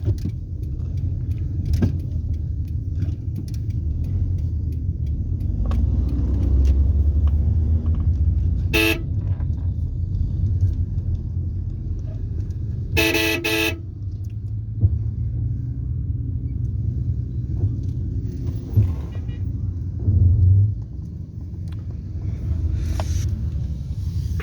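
Road traffic rumble with car horns honking: a short toot about nine seconds in and a longer honk about four seconds later.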